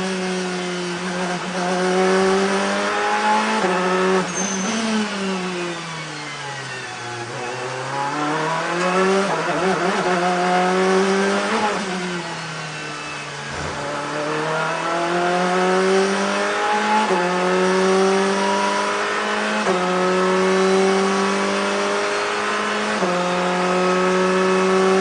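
Ferrari 488 GTE race car's twin-turbo V8 heard onboard at full throttle, climbing in pitch and stepping through quick upshifts. It twice drops in pitch as the car slows for corners, then pulls hard again with three upshifts in the second half.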